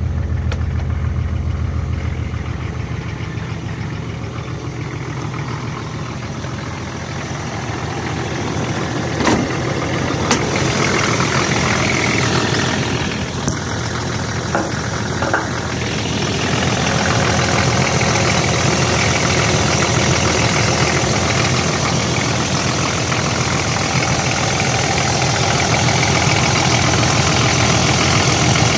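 Nissan SD33-T six-cylinder turbo diesel idling steadily from a cold start, in a 1984 Nissan Patrol with a recently overhauled engine. It gets louder and closer from a little past halfway, as the open engine bay is reached, and a few sharp clicks come partway through.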